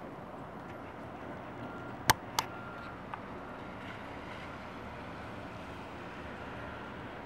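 Steady outdoor ambient noise during snowfall, a low even rush, broken about two seconds in by two sharp clicks a third of a second apart and a fainter tick a little later.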